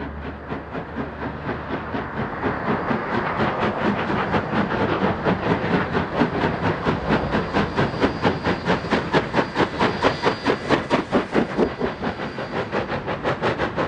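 Two steam locomotives running side by side, their exhausts chuffing in a fast, even rhythm of several beats a second, growing louder as they draw near.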